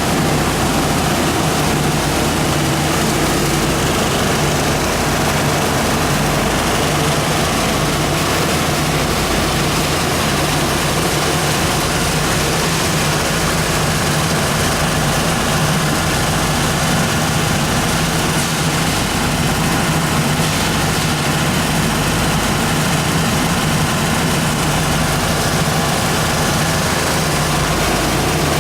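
AST-600 copper wire recycling machine running steadily under power: a constant loud machine noise with a steady low hum.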